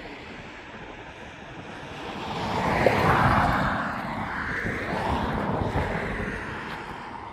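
Road traffic: a vehicle passes with a rising and falling rush, loudest about three seconds in, followed by more passing traffic. Wind is on the microphone.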